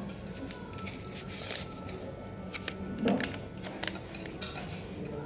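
Restaurant dining-room sound: a low steady hum with a brief rustle, then several sharp clicks and clinks of tableware around the middle of the stretch.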